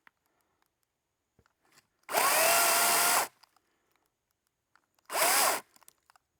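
Echo DCS2500T battery top-handle chainsaw run in two short bursts, about a second long and then half a second, its motor whining up and cutting, and stopping dead between bursts with no idle. The battery is nearly drained, so the saw only manages brief spurts.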